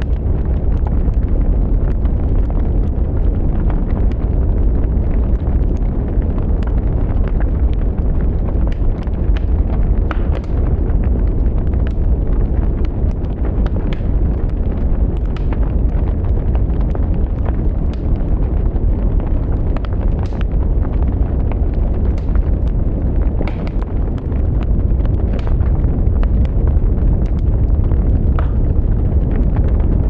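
Wood fire burning in a firebox: a steady low rumble of flames with irregular sharp crackles and pops from the burning sticks and logs.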